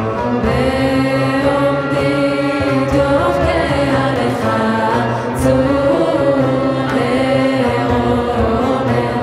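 Women's ensemble singing a Hebrew piyyut in maqam Sabâ, accompanied by ouds and ney flutes. The voices hold long notes that glide between pitches.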